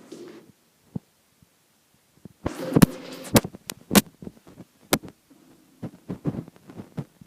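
Rustling and a run of sharp knocks and clicks about three seconds in, then softer thumps near the end.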